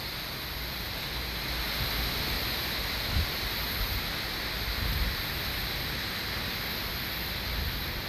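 Wind buffeting the microphone: a steady hiss with a few low, gusty rumbles, the strongest about three seconds in and again around five seconds.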